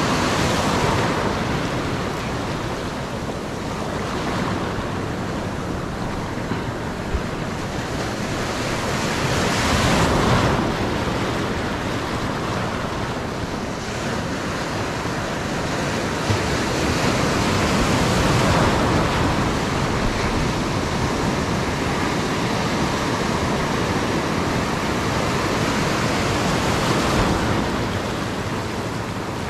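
Ocean surf breaking and washing over rocks, a steady rushing hiss that swells louder about every eight to nine seconds as each wave comes in.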